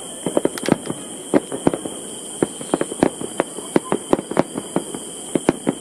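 Aerial fireworks going off in a rapid, irregular barrage of sharp bangs, about four a second.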